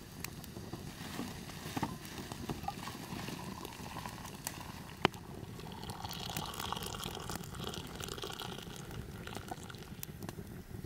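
Tea bubbling in a pan over a wood fire, with scattered light crackles and one sharp click about five seconds in.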